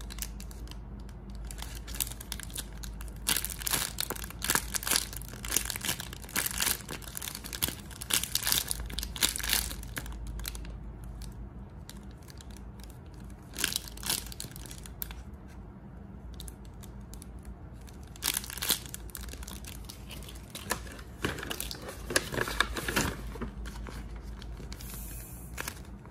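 Handmade paper squishy in a clear plastic bag being squeezed and handled: irregular crinkling and crackling of plastic and paper, in bursts with short pauses between squeezes.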